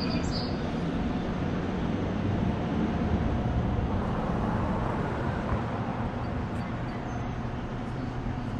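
Steady low rumble of motor-vehicle road noise, even throughout with no distinct events.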